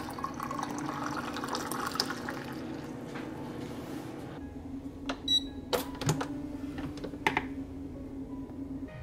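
Water poured from a stainless steel kettle into a ceramic mug for about four seconds. Several sharp clicks and a short high electronic beep follow.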